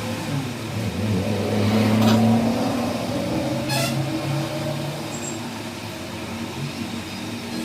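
Car engine running, its speed rising and falling a little and loudest about two seconds in. There is a short sharp click near four seconds.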